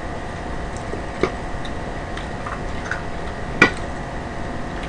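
Small tabletop clicks and taps from cups and food being handled during a meal: a few faint ticks and two sharp clicks, the second louder, over a steady background hum.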